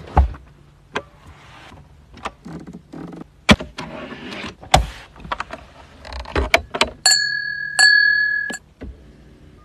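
Clicks and knocks as the rear console is opened and the glasses are handled. Near the end, two crystal champagne flutes are clinked together three times, and the glass rings on clearly between the strikes.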